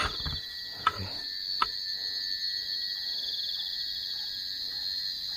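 Forest insects chirring steadily: a continuous high-pitched buzz with a fast pulsing texture. Two short clicks sound about a second and a second and a half in.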